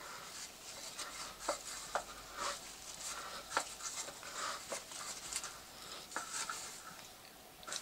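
Cross slide of an NGF-110 bench milling machine being moved by hand with the cross-feed handwheel: faint, irregular clicks and light scraping.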